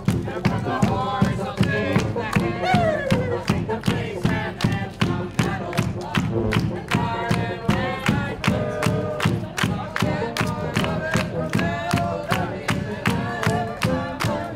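A group of voices singing together over steady rhythmic hand-clapping, about three to four claps a second.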